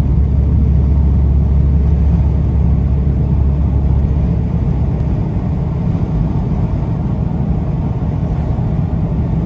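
Steady low rumble of road and engine noise heard from inside a vehicle's cabin at highway speed.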